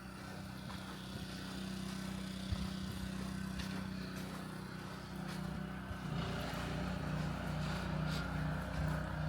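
A vehicle engine running, a steady low hum that starts to throb evenly about six seconds in.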